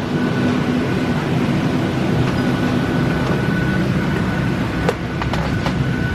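Steady engine and airflow rumble inside the cabin of a Boeing 737-700 with CFM56-7B engines, with a faint steady whine over it and a few light clicks about five seconds in.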